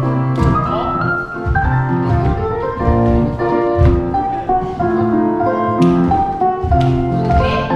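Piano music accompanying a ballet class exercise, chords and a melody over a moving bass line.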